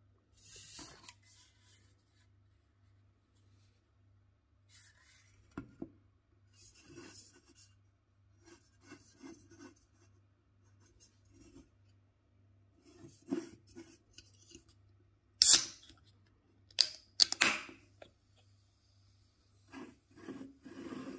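An aluminium beer can is handled and turned on a table, with light rubbing, scraping and small knocks. About two-thirds of the way through, the can's pull tab is cracked open with one sharp, loud snap, followed a second or two later by a few more clicks and rustles.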